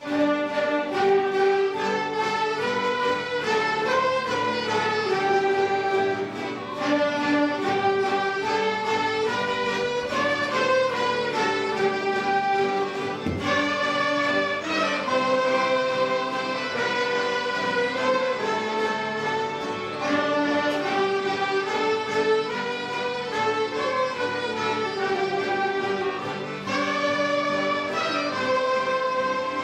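Small orchestra of violins, mandolins, guitar and flute playing an instrumental piece, starting all at once and carrying on with a moving melody over held chords.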